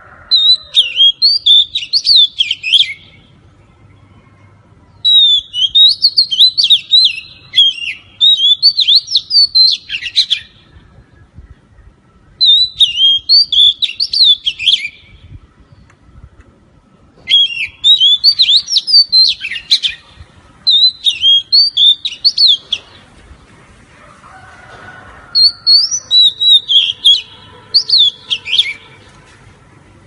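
Oriental magpie-robin (kacer) singing loud, varied whistled phrases in bursts of two to three seconds, with short pauses between them.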